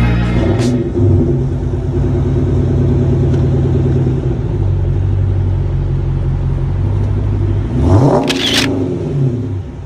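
2010 Dodge R/T's 5.7-litre HEMI V8 idling steadily through its dual exhaust. About eight seconds in it is revved once, rising sharply, then settles back to idle.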